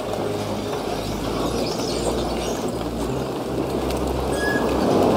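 Split firewood blocks sliding and clattering out of a tipped hooklift container onto pavement, over the steady low running of the Scania R530 XT's V8 engine driving the tipping hydraulics. The clatter swells a little near the end.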